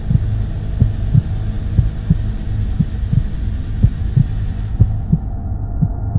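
Heartbeat sound effect: a steady pulse of low thuds over a deep hum, with a hiss that cuts off about three-quarters of the way through.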